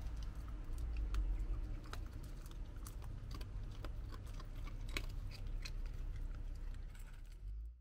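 A raccoon chewing dry kibble, with irregular sharp crunches over a steady low rumble.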